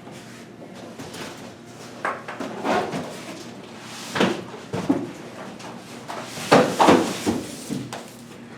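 A mid-tower PC case and its packaging being handled: a series of irregular knocks and clunks, the loudest cluster about two-thirds of the way through.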